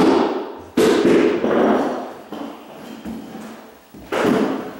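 Hammer blows nailing carpet tack strip down to a wood subfloor: several sharp strikes, the loudest just under a second in and near the end, with fainter ones between, each echoing briefly in the bare room.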